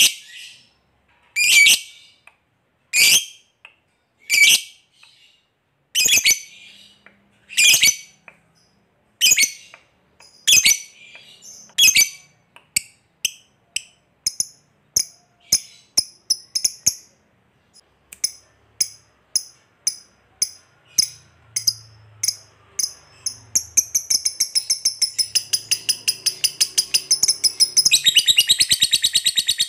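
Lovebird calling: loud, shrill single 'koek' calls about every second and a half, then shorter ticking calls ('ngetik') that come faster and faster. Near the end they run into a long rapid chattering trill, the 'ngekek' that keepers prize in a fighter lovebird.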